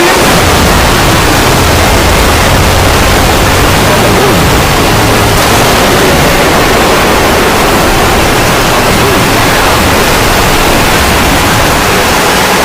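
Extremely loud, steady blast of harsh static-like noise filling every pitch from deep bass to high hiss, with no break or change.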